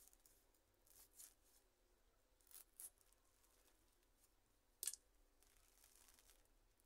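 A few brief, faint scrapes and rustles as a potted Portuguese lace fern is worked out of its pot by hand, the sharpest about five seconds in.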